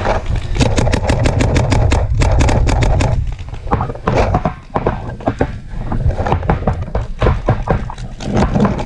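Paintball markers firing: a rapid string of shots, about eight a second, for the first three seconds, then shorter, scattered volleys, over a low rumble.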